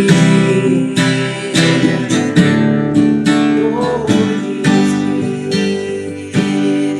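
Worship-song accompaniment between sung lines: acoustic guitar strumming chords at a steady pace.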